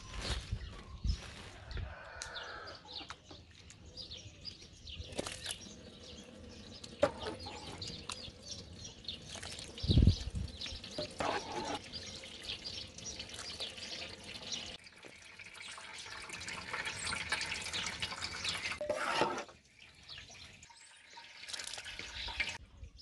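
Liquid sloshing and dripping, with scattered small clicks and one heavy thump about ten seconds in.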